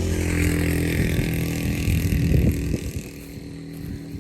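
A motor vehicle's engine running close by, with a steady low hum. It is loud for the first three seconds, then fades.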